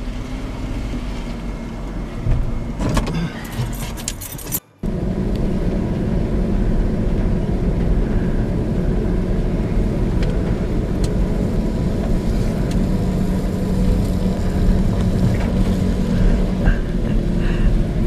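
Truck driving, heard from inside the cab: a steady low engine and road rumble, with rattling in the first few seconds and a brief dropout about five seconds in.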